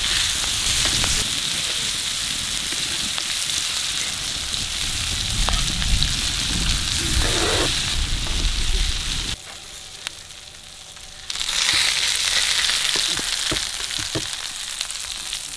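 Salmon steaks sizzling in butter in a tawa over a wood fire, with a few light clicks of a metal spatula against the pan. The sizzle drops away for about two seconds past the middle, then comes back.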